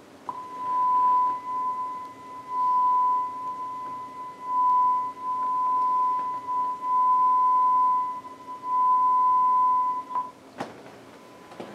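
A steady 1000 Hz test tone from a test record's left-channel band, played on a Dual CS 503-1 turntable through a loudspeaker. It is the reference tone used to check and set the turntable's 33 RPM speed. The tone swells and dips in loudness several times, stops about ten seconds in, and is followed by a sharp click.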